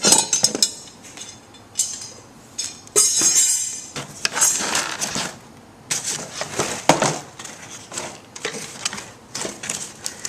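Metal garage door opener brackets and parts clinking and rattling as they are handled and lifted out of the box, with irregular clatters and stretches of rustling packaging.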